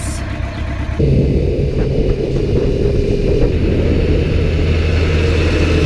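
Suzuki GSX-R600 inline-four sport bike running at a steady cruising speed, its engine hum mixed with wind rumble on the bike-mounted microphone; it comes in suddenly about a second in.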